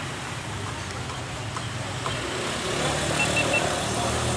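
Motor traffic running steadily, its engine rumble growing louder about two seconds in, with three quick high beeps about three seconds in.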